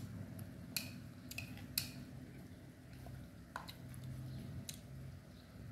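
Chopsticks tapping and clicking against a ceramic noodle bowl: several sharp taps with a brief ring, the loudest about one and two seconds in, over a low steady hum.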